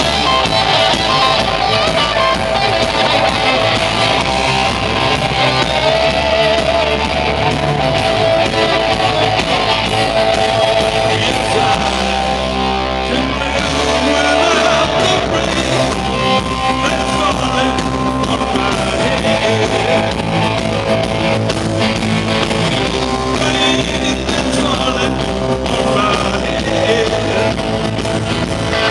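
Rock band playing live and loud, with electric guitars, bass and drums, and singing at times.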